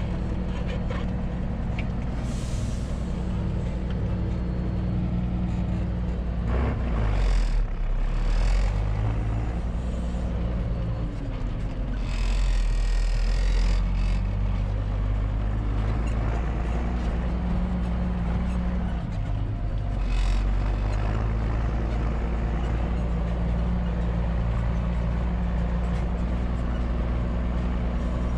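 MB Trac 1600's six-cylinder turbodiesel running steadily under load, its engine speed dropping and picking up again several times, heard from inside the cab. Short hisses come several times, the longest about twelve seconds in, lasting around two seconds.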